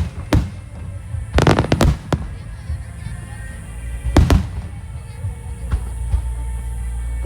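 Fireworks shells bursting in loud bangs: one shortly in, a quick cluster of several about a second and a half in, a single strong bang about four seconds in, and more starting near the end, over background music.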